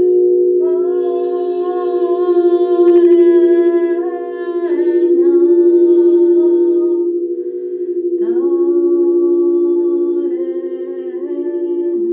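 Singing bowls ringing in a steady, pulsing drone, with a voice humming long held notes over it in two phrases and sliding down in pitch between notes.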